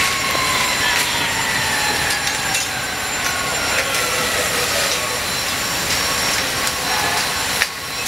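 A siren winding down, its tone falling slowly over the first several seconds, over a steady rushing noise.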